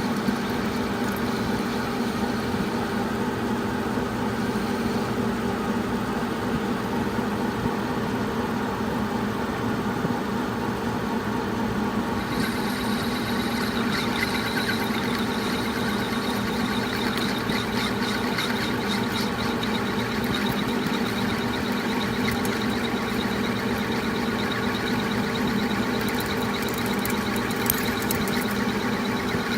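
Metal lathe turning an aluminum part, running with a steady hum. About twelve seconds in, a high thin whine joins and holds.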